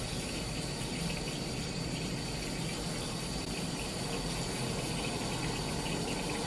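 Tap water running steadily into a sink as a face is washed.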